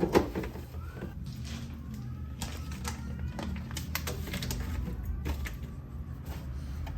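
A series of irregular light clicks and taps over a low steady hum.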